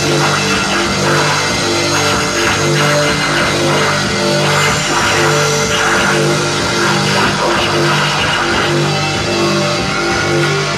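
A rock band playing live and loud: electric guitar and bass over drums, the bass repeating a short riff.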